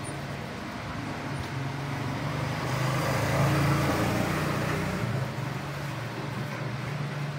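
A motor vehicle passing: a steady low engine hum, with noise that swells louder from about a third of the way in and fades again after a couple of seconds.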